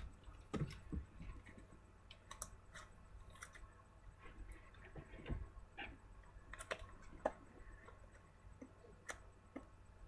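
Faint, irregular clicks and taps of trading cards being handled.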